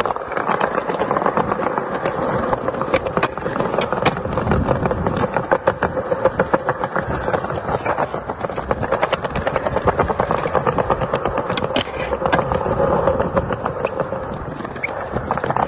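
Skateboard wheels rolling over a concrete skate plaza: a steady rolling rumble dotted with many quick clicks.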